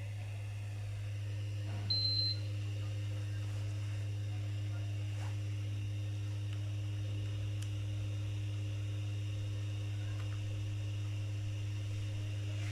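A single short, high electronic beep about two seconds in, over a steady low hum.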